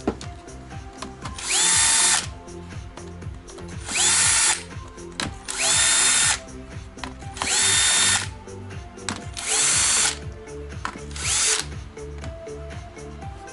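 Small power screwdriver run in six short bursts, each one whining up in pitch as the motor spins up and then holding steady: screws being driven out of the laptop's case during disassembly. Background music plays throughout.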